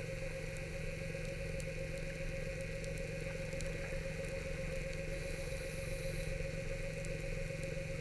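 Electric motor of an underwater scooter (diver propulsion vehicle) running at a steady pitch, heard underwater, with a few faint clicks.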